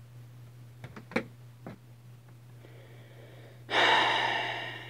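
A man's loud, sharp breath out, lasting about a second and trailing off, after a few light taps in the first two seconds.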